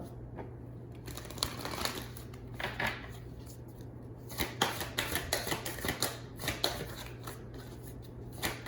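Tarot cards being shuffled: spells of rapid, crisp card clicks and riffling, with short pauses between them.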